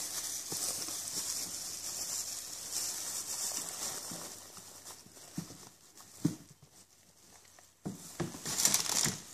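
Thin plastic bin liner rustling and crinkling as hands gather it around food scraps, steady for the first few seconds, then quieter with a few light knocks and a louder burst of crinkling near the end.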